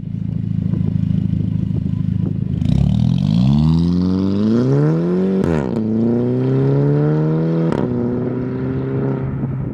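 VW Group car with a DSG gearbox accelerating hard: the engine note holds steady, then climbs through the revs, and at each of two upshifts, about halfway through and about two seconds later, the exhaust lets out a sharp crack as the pitch drops back. This is the DSG upshift 'fart', the exhaust burp from the brief ignition cut during a full-throttle gearchange.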